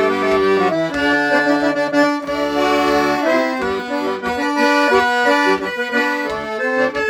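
Accordion (gaita) playing the closing instrumental of a gaúcho song, sustained chords under a moving melody.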